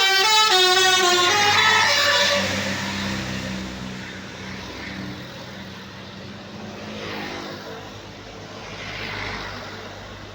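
Tour bus 'telolet' melody horn playing a quick tune of stepped notes, cutting off about two seconds in. Then the low drone of bus engines and traffic, with a few vehicles passing by.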